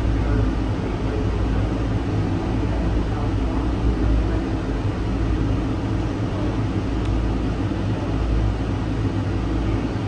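Automated cable-hauled airport people-mover train running along its guideway, heard from inside the car as a steady low rumble with a faint hum.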